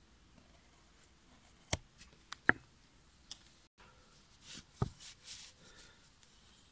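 Carving gouge cutting into a wooden board edge in a few sharp, clicking strokes as chips snap off. Then the board is picked up and handled on a cloth-covered table, with light rustling and one knock.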